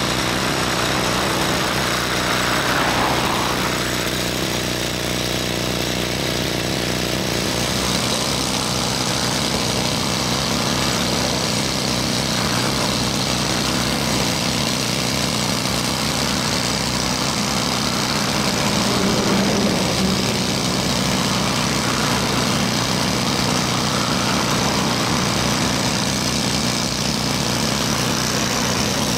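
Heavy diesel construction machinery running steadily, with a vehicle passing about three seconds in.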